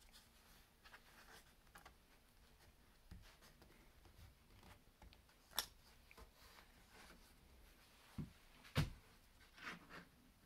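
Hands handling and pressing a metal-backed LCD display panel: faint rubbing with several sharp taps, the loudest about nine seconds in.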